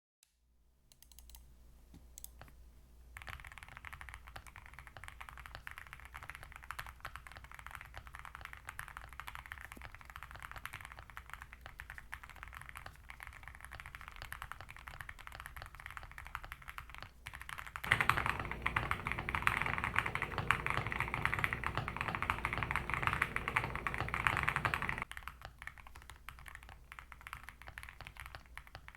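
Typing on an Akko SPR67 mechanical keyboard with stock Wuque Studios Morandi linear switches, an FR4 plate and PBT Cherry-profile keycaps: a steady stream of keystrokes that turns louder and denser for about seven seconds past the middle, then eases back.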